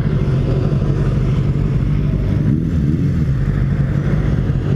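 Motorcycle engine running at a steady pace while riding, with wind and road noise over the microphone.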